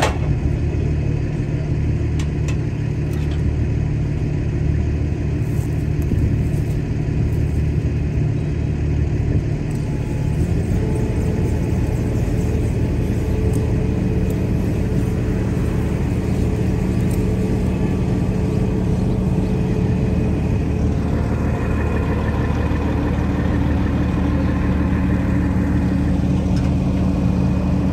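Heavy diesel wrecker (Century 5230) engine running steadily. Its pitch steps up about a third of the way in, and a higher whine joins about two-thirds of the way through.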